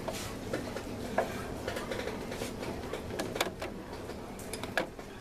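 Irregular light metallic clicks and taps of hand tools while a homemade washer-and-bolt tool presses an exhaust gasket into a motorcycle exhaust port, with a small cluster of clicks a little past the middle.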